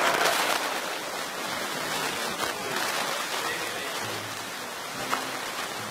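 Audience applauding. About four seconds in, a few low plucked notes from the upright bass come through the applause.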